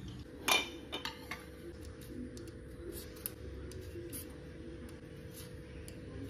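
A sharp metallic clank with a short ring about half a second in, then a few lighter knocks of kitchenware around a metal colander, followed by faint scraping ticks of a handheld vegetable peeler stripping carrots.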